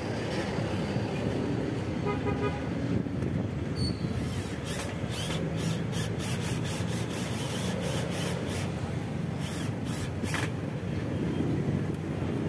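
Cordless drill driving screws into an aluminium door-frame jamb over steady street traffic, with a series of sharp clicks through the middle. A vehicle horn toots briefly about two seconds in.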